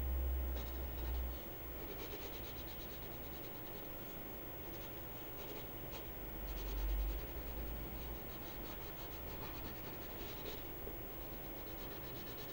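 Graphite pencil scratching on drawing paper in quick repeated hatching strokes, shading in the dark areas of a sketch. Two soft low rumbles, one near the start and a louder one about seven seconds in.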